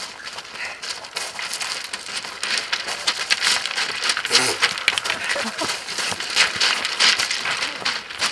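Runners' feet landing and skidding on loose slate scree, a dense irregular crunching and clattering of stones that builds after about a second and is loudest from about three seconds in as runners reach the heap.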